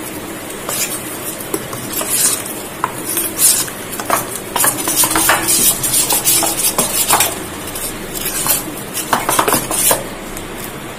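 A metal spoon stirring thick semolina-and-yogurt idli batter in a steel bowl, with irregular scrapes and clinks of the spoon against the bowl; the stirring stops about ten seconds in.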